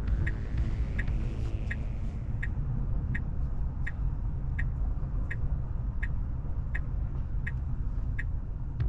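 Tesla Model 3 turn-signal indicator ticking steadily, about three ticks every two seconds, over a low rumble of road noise in the cabin.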